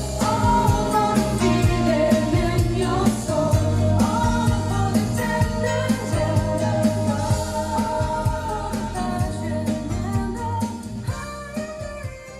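A pop song with singing, a steady bass line and drum beat, played through a pair of JBL LX70 three-way tower speakers; it gets quieter near the end.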